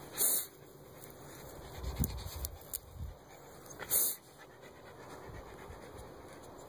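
Miniature schnauzer panting as it digs into an animal burrow, with two short scratchy rustles, one near the start and one about four seconds in.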